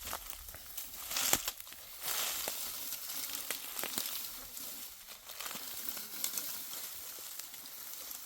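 Crackling and rustling of dry material, with sharp snaps a little over a second in and again near four seconds.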